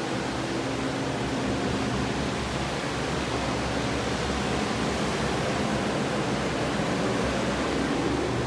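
Commercial drying equipment, Phoenix air movers and dehumidifiers, running together: a steady rush of blown air with a low hum underneath, the sound of a water-damaged room being dried out.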